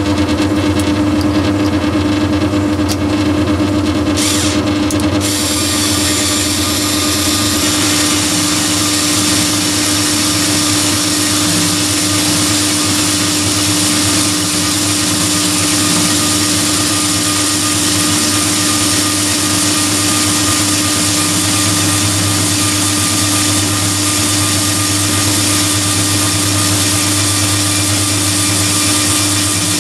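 Myford ML7 lathe running steadily with a constant hum. About five seconds in, a cordless screwdriver starts driving the compound slide's feed through a 4-to-1 reduction gearbox (a Mason Master D-Speeder), adding a steady whirring hiss as the tool cuts mild steel.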